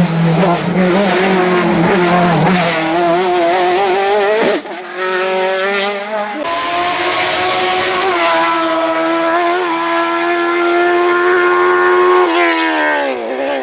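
Race car engine at speed on a hillclimb, revving hard with its pitch wavering up and down. There is a brief dip in level about four and a half seconds in, and the pitch falls steeply near the end as the car slows, then picks up again.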